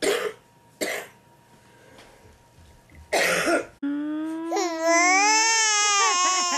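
An adult coughing three times, the last cough the longest. Then, about four seconds in, an infant starts crying: a long wailing cry that rises in pitch and wavers.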